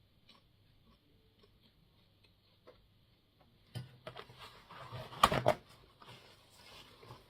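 Quiet room with faint ticks, then about two seconds of small knocks and clicks from objects being handled, the sharpest click about five seconds in.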